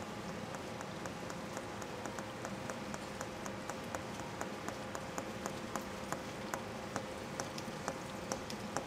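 Footsteps of hard-soled shoes on a station platform, a regular tread of about three steps a second that grows more distinct towards the end, over a steady hiss and faint hum.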